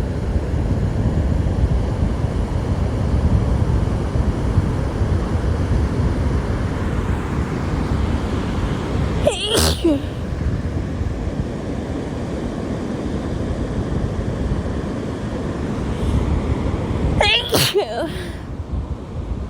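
A woman sneezing twice, about eight seconds apart, over the steady rush of surf and wind on the microphone.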